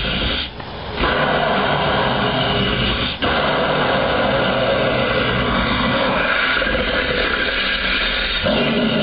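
Added horror sound effects: a dense, steady wall of noise with no words, dropping out briefly about half a second in and again near three seconds in.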